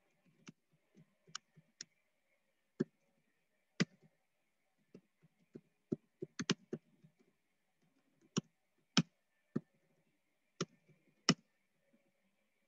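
Sparse, irregular clicks of a computer keyboard, with a quick cluster about six and a half seconds in.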